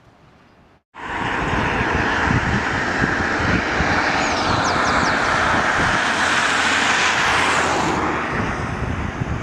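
A loud, steady rushing noise that starts abruptly about a second in, right after a brief dropout.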